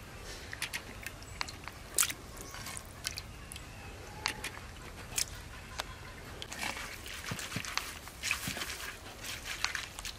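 Small mola fish being washed by hand in a clay bowl of water: light splashes and scattered sharp clicks, coming thicker in the last few seconds.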